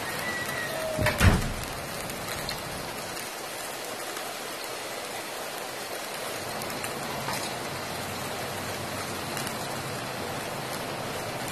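Fish frying in hot oil in a lidded wok: a steady sizzle and spatter, with one loud knock about a second in.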